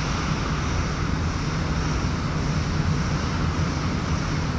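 Steady machinery running noise with a strong low hum under an even hiss, unbroken throughout.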